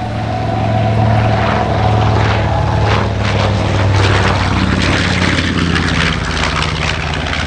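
Twin radial piston engines of a B-25 Mitchell bomber running in a flyby: a steady low engine drone, joined about three seconds in by a louder propeller rasp, its pitch dropping slightly as it passes.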